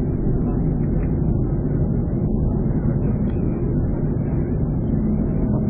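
Boeing 737 jet engines running, a steady low rumble with no change in level.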